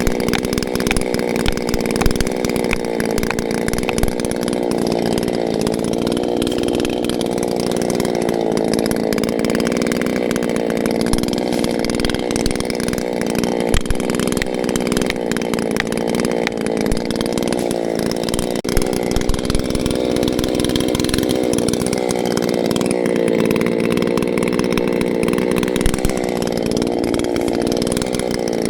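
Chainsaw running steadily under load, cutting into the trunk of a dead tree, its motor pitch wavering slightly as the chain bites, with scattered sharp clicks.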